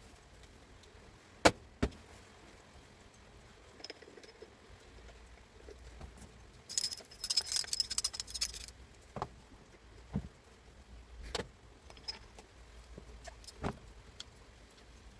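Metal parts and tools being handled on a workbench: scattered sharp clicks and knocks, the two loudest together about one and a half seconds in, with a jingling metallic rattle lasting about two seconds near the middle.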